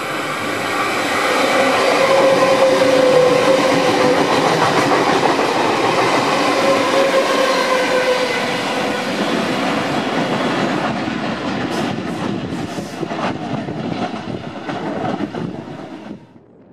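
NSW TrainLink Intercity V-set double-deck electric train running close past on the track: a loud rush of wheels and running gear with a steady whine. In the second half comes a run of sharp wheel clicks over rail joints. The sound cuts off suddenly about a second before the end.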